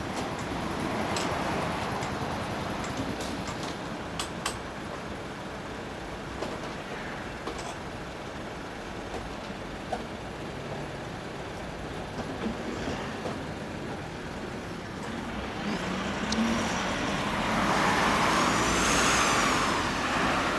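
Road traffic noise. It swells over the last few seconds as a vehicle passes close by, with a high hiss that rises and then falls.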